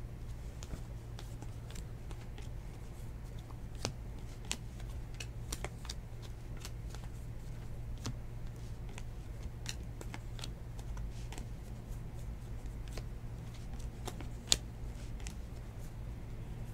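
A stack of 2019 Bowman baseball cards being leafed through by hand: light, irregular clicks of card edges slipping past one another, with one sharper click near the end. A steady low hum runs underneath.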